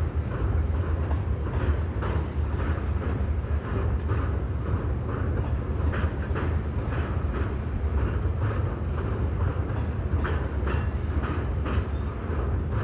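A freight train of empty oil tank cars rolling past at steady speed: a continuous low rumble with repeated wheel clicks over the rails.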